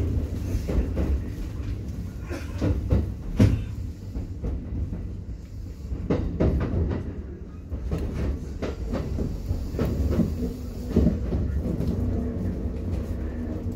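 Kintetsu 1233-series electric train heard from inside the car while pulling away from a station: a steady low running rumble with irregular clacks and knocks from the wheels over rail joints and points. The loudest knock comes about three and a half seconds in.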